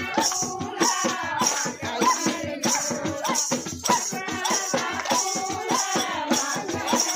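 Group of women singing a Kumauni folk song to a steady beat of dholak drum and hand claps, with a chimta's metal jingles shaking on the beat.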